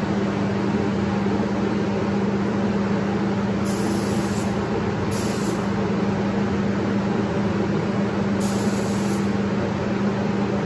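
Paint spray booth's ventilation running: a steady rush of air with a low hum. Four short, high hisses come over it, the first about four seconds in and the last near the end.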